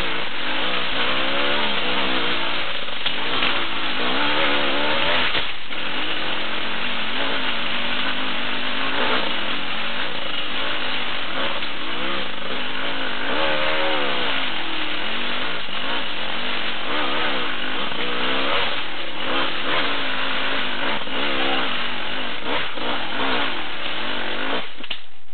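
Enduro motorcycle engine revving up and down without a break as it is ridden along a rough forest trail, the throttle constantly opened and closed.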